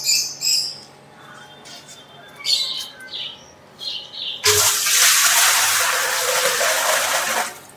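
Water poured from a steel bucket into a large, empty metal cooking pot: a loud, steady gush and splash that starts about halfway through, lasts about three seconds and stops suddenly near the end. Before the pour there are a few short, high chirps.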